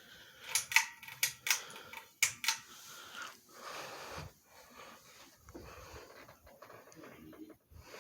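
About six sharp clicks in quick succession in the first two and a half seconds, then a faint background of a Hampton Bay Landmark ceiling fan running quietly on low.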